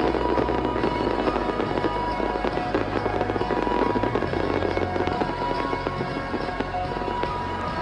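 Fireworks display: a dense, continuous crackle of many small pops and bangs, with the show's accompanying music playing underneath.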